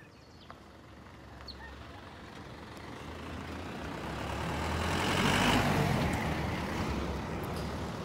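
Pickup truck driving past on a paved road: engine and tyre noise growing as it approaches, loudest about five and a half seconds in, then easing off as it moves away.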